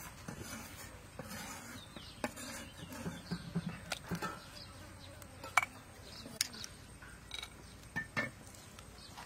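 Small freshwater crabs being cleaned by hand: scattered sharp clicks and soft crackles as their shells are snapped and pulled apart.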